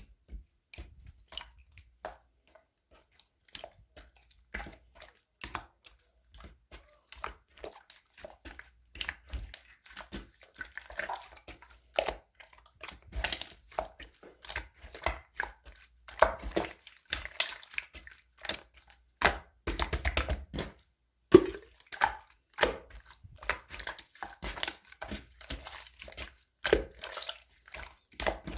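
Irregular close-up clicks and taps mixed with crinkly handling noises, coming thick and fast with brief gaps.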